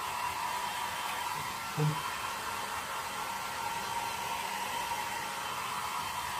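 Handheld hair dryer running steadily on warm air, blowing over a wet Yorkshire terrier's coat: an even rush of air with a constant whine.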